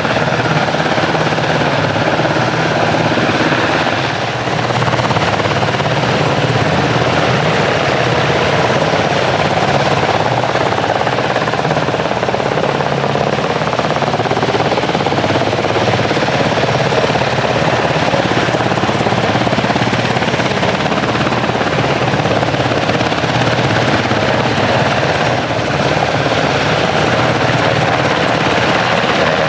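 US Coast Guard rescue helicopter in flight, its rotor and turbine engines running loud and steady, with brief dips in loudness about four seconds in and near the end.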